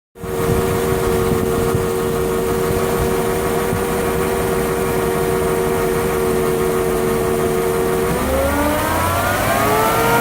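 Lexus LS400's 1UZ-FE V8 running with a steady whine over the idle. About eight seconds in the engine is revved and the whine rises in pitch with it. The owner thinks it comes from the alternator, maybe bad diodes.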